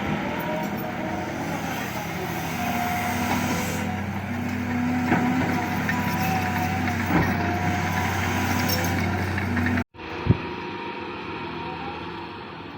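Excavator running: a steady diesel engine drone with wavering metallic squeals and a few sharp clunks. The sound cuts out briefly about ten seconds in, then returns quieter after a single knock.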